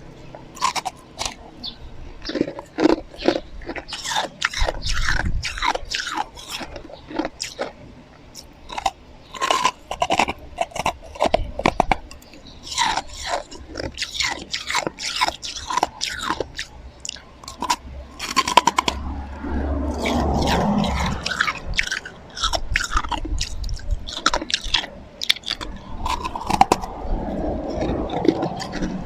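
Close-miked chewing of slushy ice: a steady run of crisp, irregular crunches as the ice is bitten and ground between the teeth, with denser stretches of chewing twice in the second half.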